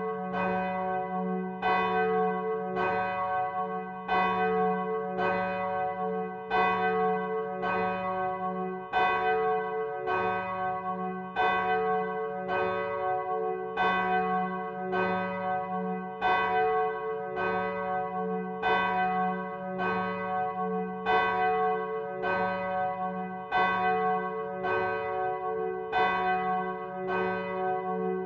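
A large church bell cast by Michiels of Tournai in 1957, swung full circle in its frame, its clapper striking about once a second while the long hum of the bell rings on between strokes.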